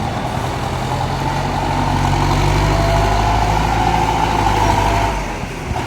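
Heavy vehicle's engine running steadily, its low hum dropping away about five seconds in.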